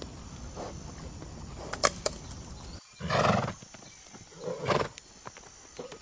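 Horse giving two short, loud calls, the first about halfway through and a second one about a second and a half later, over a quiet outdoor background.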